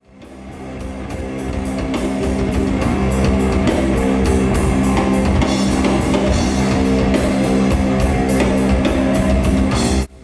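Rock music with a drum kit and guitar, fading in over the first couple of seconds and cutting off suddenly near the end.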